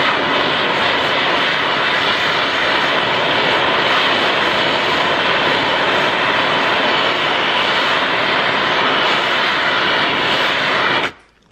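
Handheld trigger-start MAP-Pro gas torch burning with a steady rushing hiss as it heats a steel knife blade to straighten it. The flame cuts off abruptly near the end when the trigger is released.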